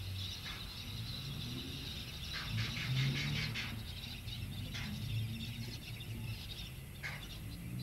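Scattered bird chirps over a low rumble from steam locomotive W934 approaching slowly. The rumble swells about three seconds in.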